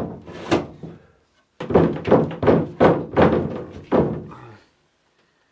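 Heavy thunks: one or two near the start, then a steady run of about seven, a little over two a second, which stops about four and a half seconds in.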